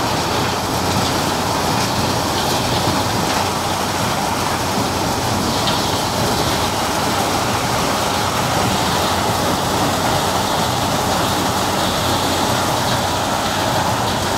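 Tractor-mounted thresher with conveyor running, a loud, steady mechanical noise that does not change or break.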